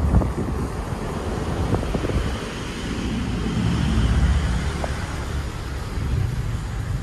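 Road noise from inside a moving car: a steady low rumble with wind buffeting the microphone.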